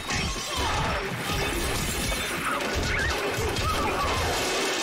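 Continuous loud cartoon crashing and clattering with music underneath, cutting off abruptly at the end.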